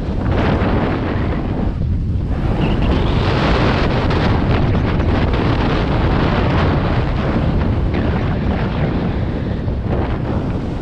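Wind buffeting the microphone while riding a snowboard downhill, with the board's base and edges scraping and hissing over packed snow in a steady, loud rush.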